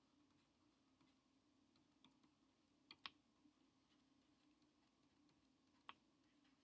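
Near silence: faint room hum broken by a few faint clicks of a stylus tapping on a tablet while writing, one about two seconds in, two close together around three seconds, and one near the end.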